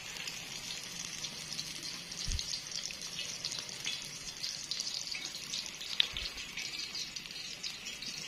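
A chapli kabab of raw beef mince frying in shallow hot oil in a karahi: a steady sizzle full of fine crackles and spits, the patty freshly laid in the oil. One sharp click about six seconds in.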